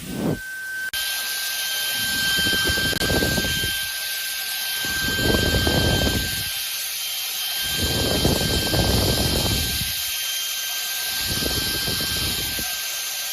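Shark WandVac cordless handheld vacuum running: a steady motor whine and airflow hiss, which steps up about a second in. A low rumble rises and fades four times over it.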